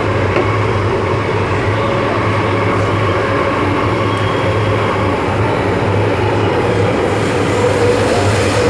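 MTR Island Line M-Train heard from inside the car, running along the track with a steady rumble of wheels and a traction motor hum.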